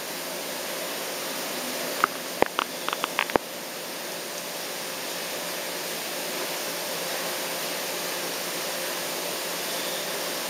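Steady background hiss, with a quick run of six or seven small sharp clicks, some faintly ringing, between about two and three and a half seconds in, as a fishing hook and line are handled in the fingers.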